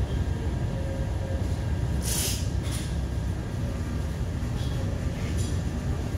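Paint spray booth air flow running with a steady low rumble, while a spray gun hisses in short bursts: about two seconds in, again just after, once more past five seconds, and at the very end.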